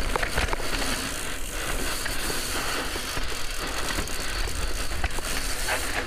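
Mountain bike riding down a rocky dirt trail: tyres crunching over dirt and stones and the bike rattling with scattered clicks over the bumps, under a steady rush of wind on the microphone.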